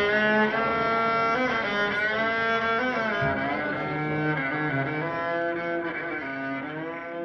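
A solo fiddle plays held bowed notes, several pitches sounding together, with a few sliding notes. It fades out gradually.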